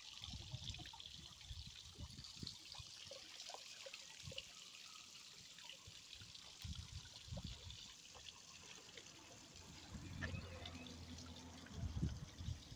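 Water running from an outdoor gooseneck tap into a plastic bottle and spilling over onto a metal drain grate: a faint, even splashing trickle. A few low bumps come near the end.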